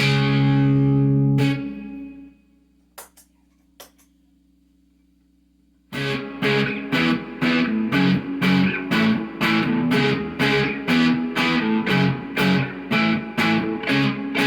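Electric guitar played through an amplifier: a held chord rings and fades away over about two seconds, then a few faint clicks in a pause. About six seconds in, a fast riff of short, choppy chords starts, about four a second.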